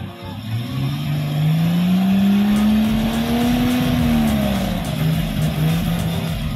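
Engine of a modified off-road 4x4 revving under load in deep mud: its pitch climbs for about three seconds, then drops back about two-thirds of the way through and holds at a steadier, lower run.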